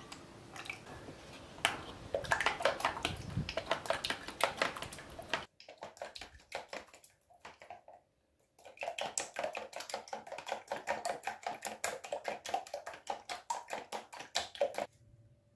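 A spoon beating cake batter in a plastic mixing bowl: rapid, regular clicks and taps of the spoon against the bowl, in two spells broken by a short pause just past the middle.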